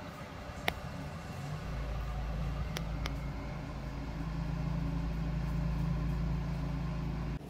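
Car driving, heard from inside the cabin: a steady low drone of engine and road noise that grows louder about a second and a half in. A few sharp clicks are heard over it, the loudest near the start.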